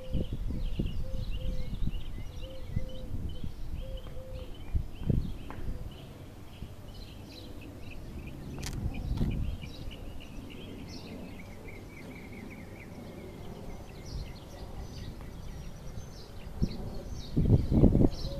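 Several small birds chirping and twittering, over a low rumble that swells near the end.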